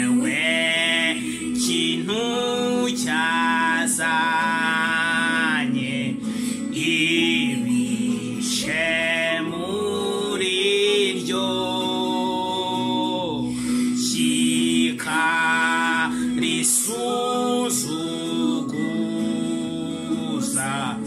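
Unaccompanied gospel singing: a worship song sung in slow phrases with long held notes, over a steady low tone.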